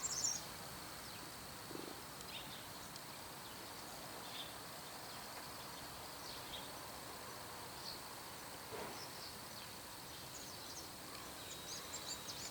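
Bull-headed shrike calling with short, high chirping notes: a quick burst at the start, a few soft scattered notes through the middle, and a run of quiet, muttering chirps near the end.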